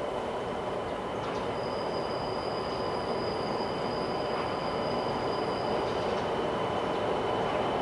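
High-speed electric bullet train approaching along the station platform: a steady rolling rumble that grows slowly louder, with a thin high whine above it. A second, higher whine joins from about a second and a half in until about six seconds.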